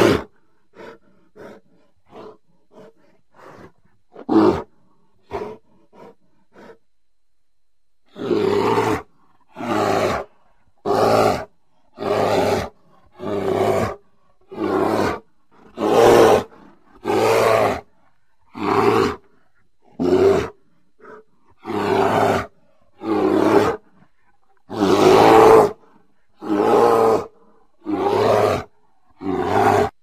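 Bear roaring. Several seconds of short, faint calls about two a second come first, then from about eight seconds in a steady series of loud roars, roughly one a second, each less than a second long, with one longer roar near the end.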